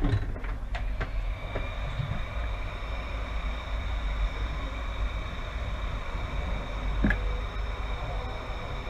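Steady machine hum with faint steady high-pitched tones, a few small clicks near the start and another click about seven seconds in.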